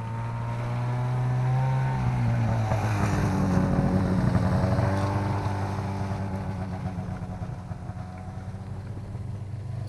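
A motor vehicle's engine passes by on the ice, getting louder to a peak about halfway through and then fading, with its pitch bending as it goes.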